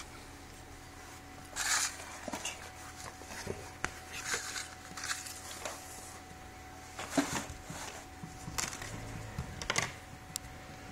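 Handling noise: irregular soft rustles and a few sharp light clicks and knocks as the tablet and the things around it are moved about on the table.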